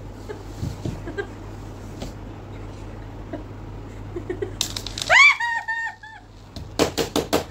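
A high-pitched squealing laugh in quick repeated notes about five seconds in, followed by a run of short, sharp gasping bursts of laughter near the end, over a steady low hum.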